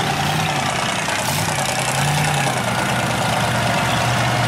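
Big mega mud truck engines running steadily, the pitch rising and falling slightly as the throttle is worked.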